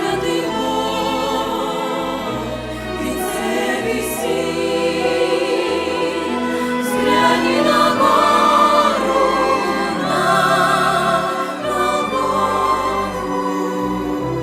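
A church choir singing a Russian-language hymn over sustained low accompaniment notes, swelling loudest about halfway through.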